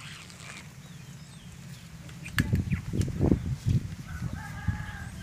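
A rooster crowing in the background near the end, one long held call. Before it comes a louder stretch of low rumbling thumps lasting about a second and a half.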